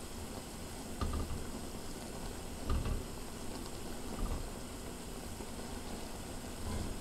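Ramen broth boiling in a pan on a portable gas stove, a steady bubbling hiss. A few soft knocks of a wooden spatula and chopsticks against the pan come about a second in, near the middle and about four seconds in.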